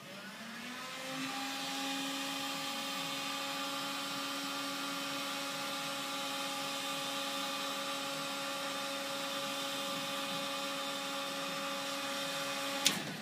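Electric heat gun running, blowing hot air onto a circuit board to soften its conformal coating. Its fan motor spins up over about a second to a steady hum with a rush of air, then a sharp click near the end as it is switched off and the sound cuts out.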